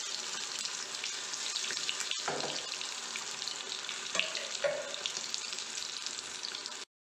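Marinated chicken kabab pieces deep-frying in hot oil in a kadai, a steady sizzle. The sound drops out for a moment near the end.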